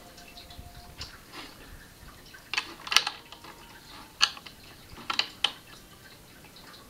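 Plastic Lego bricks clicking and clacking as pieces are handled and pressed onto a model: a handful of separate sharp clicks, the loudest about three seconds in.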